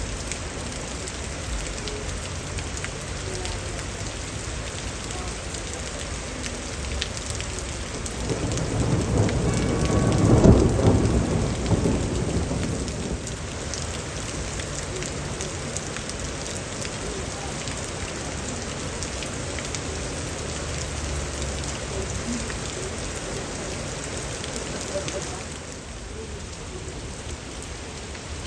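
Steady rain falling on leaves, with a rolling peal of thunder that swells about eight seconds in, peaks a couple of seconds later and dies away by about thirteen seconds. The rain eases slightly near the end.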